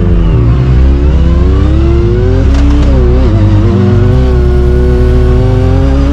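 Yamaha YXZ 1000R side-by-side running its swapped-in 1050 Yamaha Viper snowmobile engine, a three-cylinder four-stroke, under throttle on a trail. The revs dip, climb for about two seconds, drop briefly about three seconds in, then hold and rise slowly.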